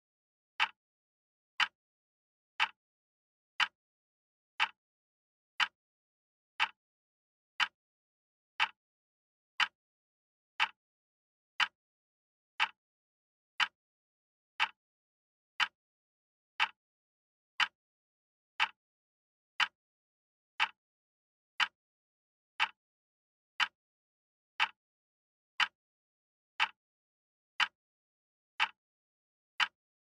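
Radio-controlled quartz wall clock ticking: short, crisp clicks, evenly spaced at one per second as the second hand steps.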